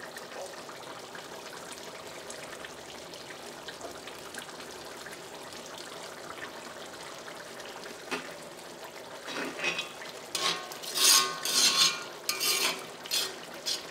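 Chicken curry simmering in a cast-iron pan with a steady low hiss, then from about eight seconds in a spatula stirs it, scraping against the pan in a run of loud strokes.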